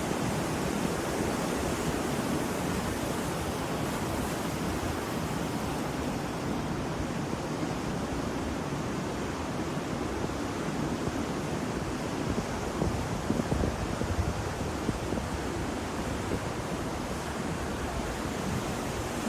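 Ocean surf: a steady wash of breaking waves, with small crackling peaks in the second half.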